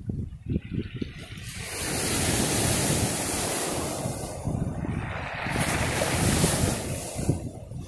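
Sea waves breaking and washing up a shingle beach of rounded pebbles, in two long surges of hiss, the first about two seconds in and the second about five and a half seconds in. Wind buffets the microphone in low gusts at the start.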